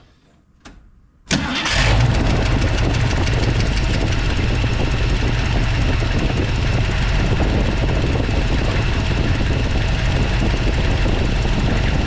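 A 1979 Jeep Wagoneer's AMC 360 V8 starting about a second in, then idling steadily. It has freshly replaced rocker arms, and its lifter tick is a lot quieter.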